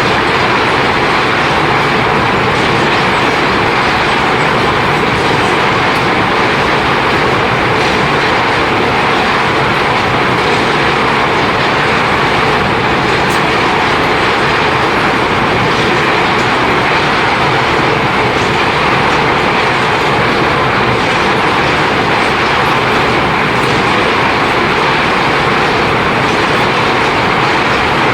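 Ore-grinding mill machinery of a gold processing plant running, a loud, steady mechanical din that does not let up.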